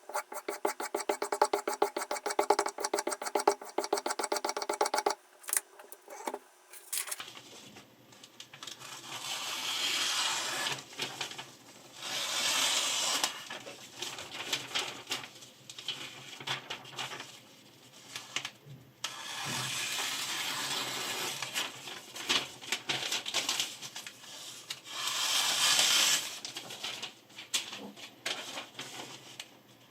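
Sharpening stone on a Toohr guided knife sharpener drawn along a kitchen knife blade in long, slow, gritty strokes, each swelling and fading over a second or two. The strokes are preceded by a rapid, even run of clicks during the first few seconds.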